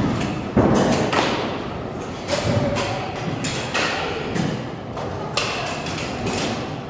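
Irregular thumps and clatters of kick scooters on concrete skatepark ramps, wheels and decks knocking down and rolling, a knock every second or so, the loudest about half a second in. The knocks ring out in a large hall.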